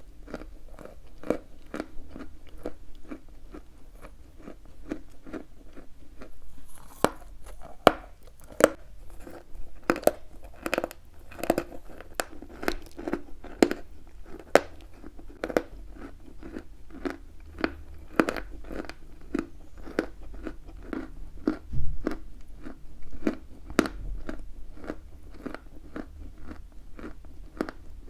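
Chalk being chewed close to the microphone: a steady run of crunches, about two a second.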